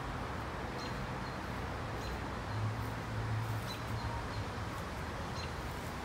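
Outdoor backyard ambience: a steady background hiss with faint, short bird chirps about once a second, and a low hum for a couple of seconds in the middle.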